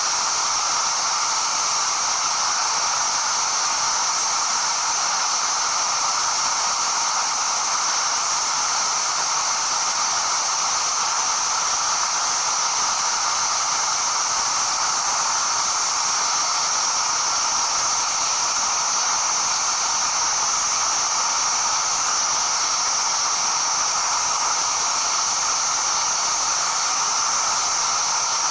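Steady rushing roar of a tall waterfall cascading down a rock face, unbroken and even throughout.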